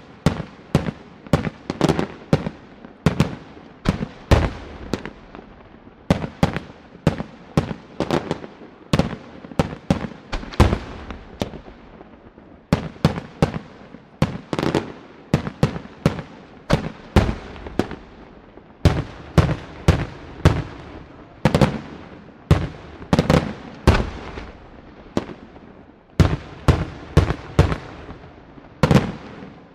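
Chiarappa Fireworks aerial display shells bursting in quick succession, about two sharp reports a second, each with a short ringing tail. The barrage eases briefly about twelve seconds in and again near the end.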